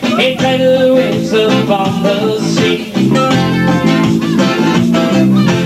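Acoustic guitars strummed live, full chords in a steady rhythm.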